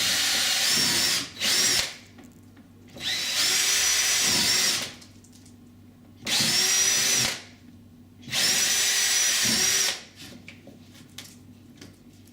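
Power drill with a 5 mm bit run in five short bursts, enlarging pilot holes in a uPVC door so that jack plugs will fit. Each burst opens with a rising whine. About ten seconds in the drilling stops, leaving a few light clicks of handling.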